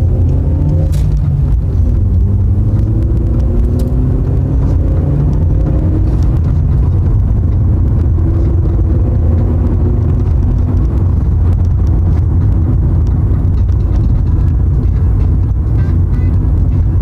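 Car engine and road rumble heard from inside the cabin while driving, with a heavy steady low drone. The engine note climbs and drops back a couple of times in the first half as the car picks up speed, then holds steady.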